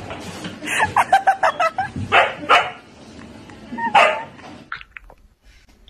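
Siberian husky yipping: a quick run of short barks about a second in, then a few louder single barks.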